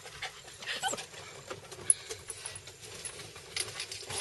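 A dog scrabbling about on a stack of wooden boards: scattered light clicks and scrapes of claws and wood, with one sharper click about two seconds in.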